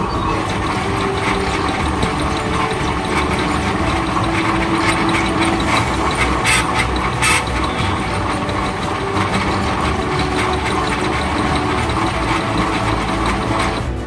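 Metal lathe running, its chuck spinning while a boring tool cuts inside the bore of a metal wheel hub: a steady mechanical din, with two brief hissing bursts a little past the middle.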